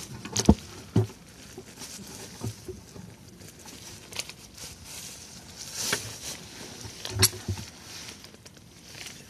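Scattered clicks and knocks of a Torx socket on a long extension working the oil-pan bolts of a Mercedes 722.6 automatic transmission, the loudest about half a second in, about a second in and a little past seven seconds.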